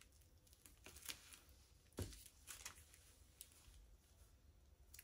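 Near silence: room tone with a few faint clicks and rustles and one soft knock about two seconds in, small handling noises on the work table.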